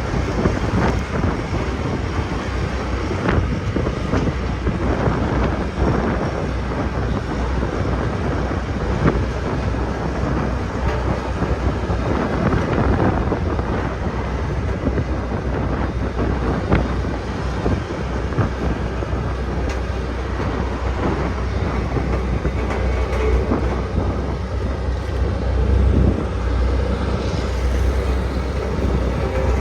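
Sakai road roller running with a steady deep diesel rumble, with frequent rattles and knocks scattered through it.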